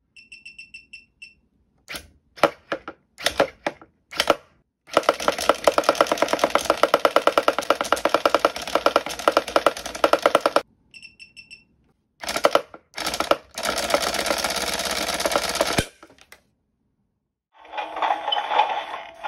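Battery-powered talking skull Halloween toy driven at 10 volts, far over its rating. Its speaker plays its sound effects sped up and distorted: short bursts, then a rapid stutter lasting about six seconds, then more bursts. A few short high beeps come near the start and again midway.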